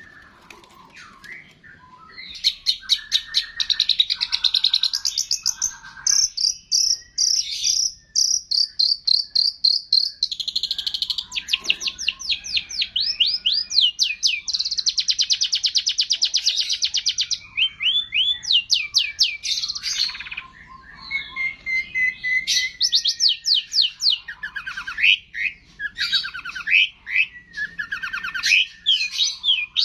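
Long-tailed shrike (cendet) singing a fast, chattering medley of rapid repeated chirps and trills, mimicking the songs of other birds. The song picks up about two seconds in and runs on in dense runs with brief breaks.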